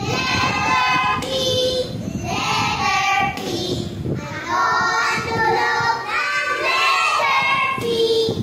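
A group of young children singing in chorus, chanting a letter-sounds drill song in Filipino that asks the sound of each letter.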